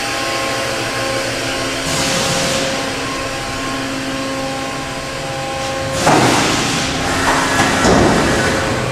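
Okuma & Howa Millac 630H CNC horizontal machining center running with a steady hum, with a brief burst of hissing about two seconds in and a longer, louder one about six seconds in.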